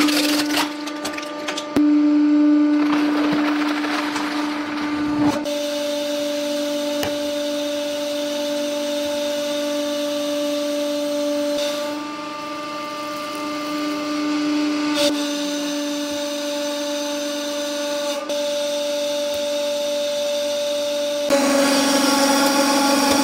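Hydraulic press running, its pump motor giving a steady hum that shifts slightly in pitch a few times, as the ram crushes objects. A few sharp cracks and snaps are heard as things give way under the press.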